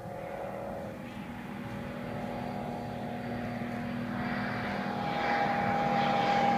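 DHC-2 Beaver's big-block V8 (TRACE Engines conversion) driving its propeller on a low flyby. The engine note is steady in pitch and grows steadily louder as the plane approaches.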